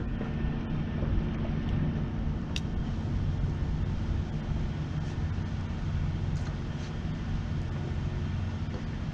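A steady low engine hum with a light wash of wind on the microphone, and one short click about two and a half seconds in.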